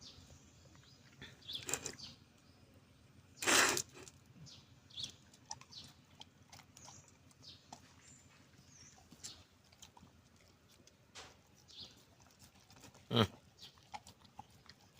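A few short animal calls. The loudest comes about three and a half seconds in and another near the end, with faint small ticks and rustling between them.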